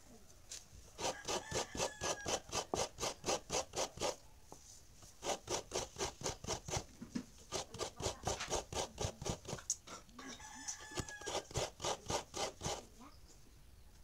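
Fresh coconut meat being grated by hand on a coconut grater: a half coconut scraped back and forth against the serrated metal blade, rasping about four strokes a second in three runs with short pauses between.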